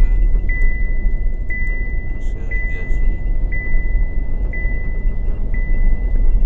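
Cabin noise of a Chevrolet SUV at highway speed, a steady low road-and-engine rumble, with a dashboard warning chime dinging about once a second as one high ringing tone.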